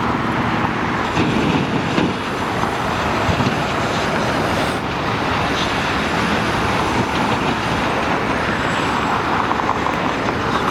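Steady, loud road traffic noise: vehicles passing on the street.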